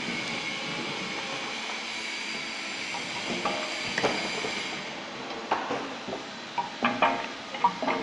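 Liquid-filling machine running with a steady hiss. From about three seconds in come irregular sharp clinks and knocks, several in quick succession near the end.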